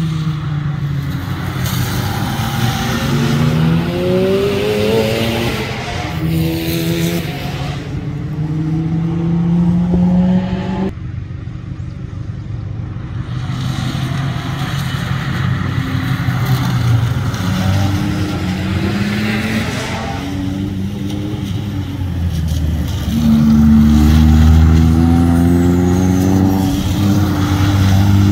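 Cars accelerating one after another through a wet corner. The engine pitch climbs, drops back at each gear change, and climbs again, over a steady hiss of tyres on wet asphalt. A louder, deeper-sounding car comes through near the end.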